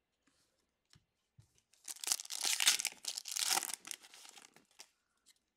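Foil wrapper of an Upper Deck Synergy hockey card pack torn open and crinkled by hand. A dense burst of tearing and rustling starts about two seconds in, lasts about three seconds and fades out, with a couple of faint clicks before it.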